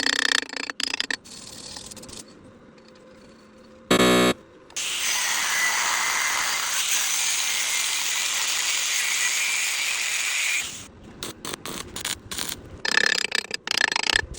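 Stick-welding arc burning steadily for about six seconds, a loud even crackling hiss. A short loud buzz comes just before it, and scattered clicks and taps come before and after.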